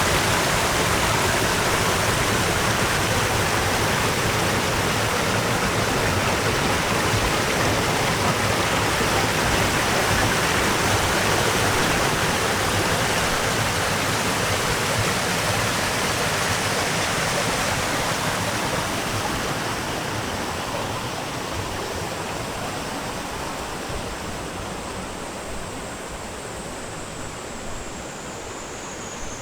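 Rushing water of a spring-fed stream: a steady, loud rush that fades gradually over the last ten seconds or so.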